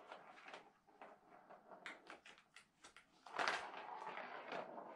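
A ball rolling and rattling around the plastic track of a Catit Senses Super Roller Circuit as a cat bats at it, with a string of sharp clicks and taps. A louder, longer roll starts about three and a half seconds in and lasts over a second.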